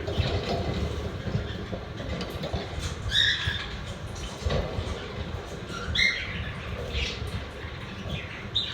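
Pet budgerigars giving short chirps and squawks a few seconds apart, over a steady low rumble.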